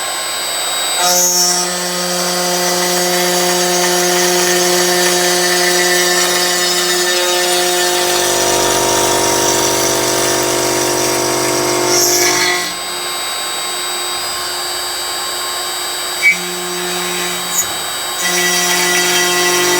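Aluminum profile CNC drilling and milling machine running: a steady motor whine made of several tones that shifts as the machine works, with a deeper hum from about eight to twelve seconds, short bursts of hiss about a second in and around twelve seconds, and two sharp clicks near the end.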